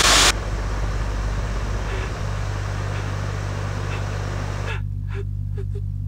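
A steady low hum. From about five seconds in, a person's short, quick breaths, panting, come in over it.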